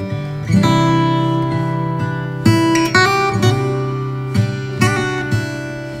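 Background music: strummed acoustic guitar, with chords struck every half second to a second.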